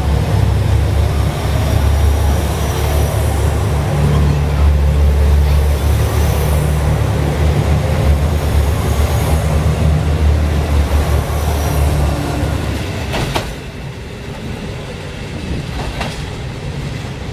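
KiHa 185 diesel railcar moving along the platform close by. Its diesel engines give a steady loud low drone over rail noise. The drone drops away about 13 seconds in, and two sharp clacks follow.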